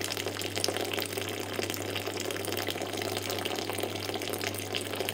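A thin stream of water pouring steadily into a steel pot of chopped apples, splashing on the water already in the pot, with a steady low hum underneath.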